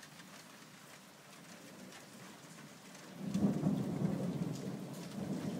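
Steady rain with scattered drop ticks. About three seconds in, thunder from a nearby lightning strike breaks in suddenly and swells into a loud rumble that keeps going.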